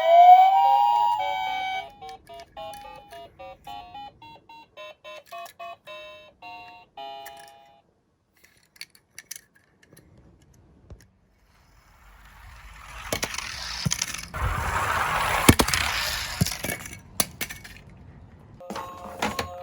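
Electronic sound chips of toy police car and ambulance minicars: a siren wail trailing off in the first second, then a quick run of short beeping notes like a little tune. After a pause comes several seconds of rushing, clicking rattle as the minicars roll down a slope, and steady electronic chime tones start near the end.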